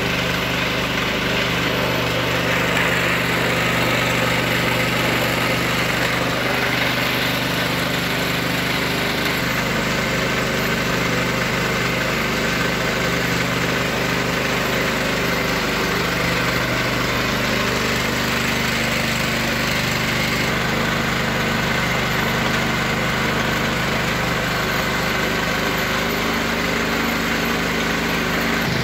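Small engine running steadily, driving a sugarcane juice machine through a belt and flywheel.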